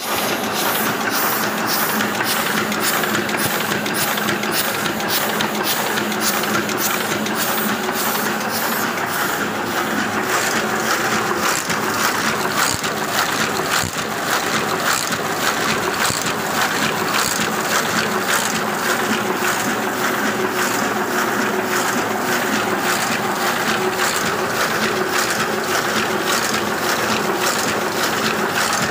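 Heidelberg sheet-fed offset printing press running, its sheet feeder and grippers clattering in a fast, even rhythm of about three beats a second over a steady mechanical whir as each sheet is lifted and fed.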